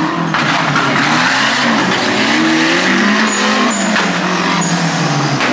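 Off-road buggy engine revving up and down, the pitch rising and falling repeatedly as the buggy drives across a muddy course.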